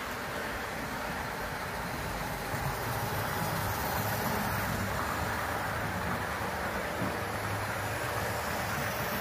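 H0 model trains running on the layout's track: a steady rolling and motor hum that grows a little louder about two and a half seconds in.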